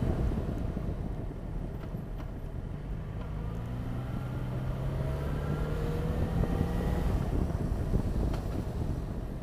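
Motorcycle engine and wind rush on the microphone while riding. The wind noise dies down over the first few seconds, then the engine note rises slowly as the bike picks up speed, easing off about seven seconds in.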